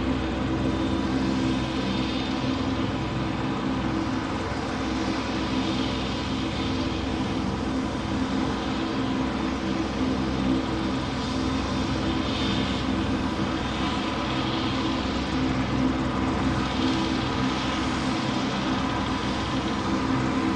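A steady engine drone: a constant low hum with several held tones under an even rushing noise, unchanging.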